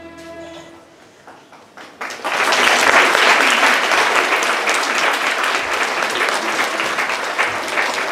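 A held musical chord fades out in the first second, then about two seconds in a school hall audience bursts into steady applause that carries on.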